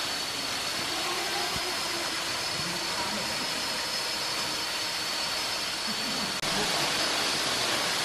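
Steady rushing hiss of a small rainforest waterfall falling into its pool, with a thin, steady high-pitched tone above it. The sound drops out for a moment about six seconds in, then carries on slightly louder.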